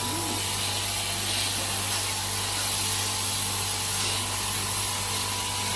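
Electric fan running steadily, set up to blow the air out: a constant airy whoosh over a low motor hum.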